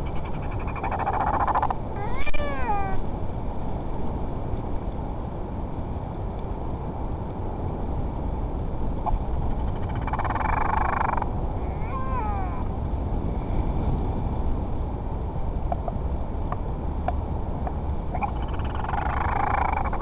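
Northern royal albatrosses calling in three bouts, about a second in, around the middle and near the end: each a short raspy burst followed by wavering, wailing calls that bend up and down in pitch. Steady wind noise on the microphone runs underneath.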